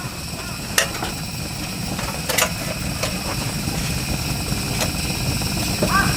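A steady low, engine-like rumble with a few sharp clicks. Crows start cawing just before the end, in repeated calls.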